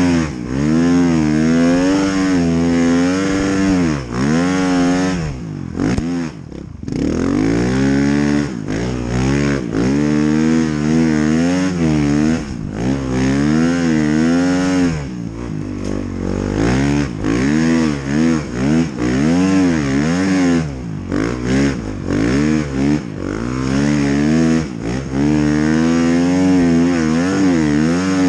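Snowbike's dirt-bike engine revving up and down again and again as the rider works the throttle, the pitch rising and falling about once a second, with a short let-off about six seconds in.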